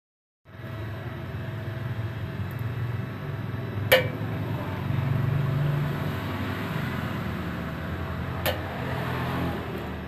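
Redfox stick-welding machine at work on steel, a steady low hum with noisy crackle, and two sharp snaps about four and a half seconds apart.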